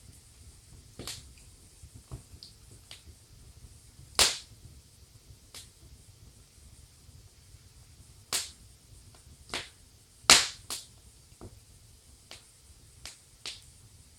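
Wood fire in a fireplace crackling: scattered sharp pops at uneven intervals over a low steady rumble, the loudest pops about four and ten seconds in.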